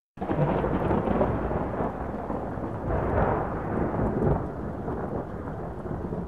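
A deep rumble with crackle, starting abruptly and easing off near the end: a thunder-like sound effect under an animated title intro.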